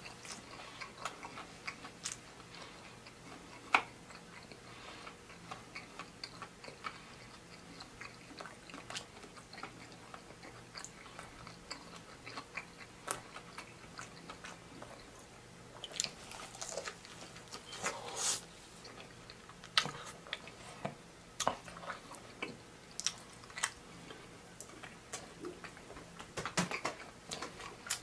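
Chewing and biting into fried chicken wings, with irregular wet mouth clicks and lip smacks. The smacks get louder a few times in the second half.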